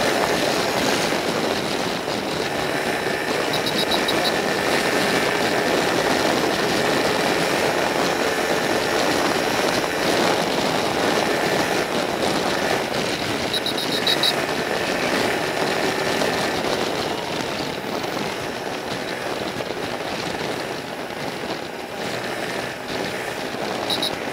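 Yamaha XTZ 250 Ténéré's single-cylinder engine running steadily at highway cruising speed, around 105 km/h, under a constant rush of wind and road noise. Brief high clicks come three times.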